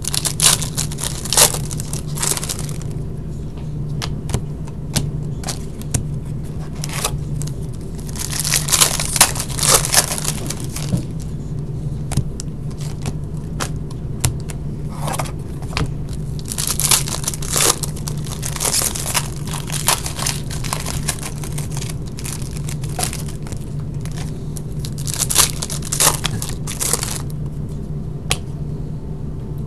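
Hockey card pack wrappers being torn open and crinkled by hand, in several bursts of crackling spread over the stretch, over a steady low hum.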